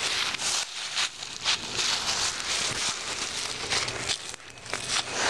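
Outdoor stick fire crackling, with many irregular sharp pops and snaps over a steady hiss.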